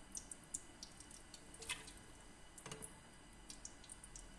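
Cooking oil poured from a plastic bottle into a spoon over a pot: faint drips and small ticks, with two slightly louder clicks about a second apart in the middle.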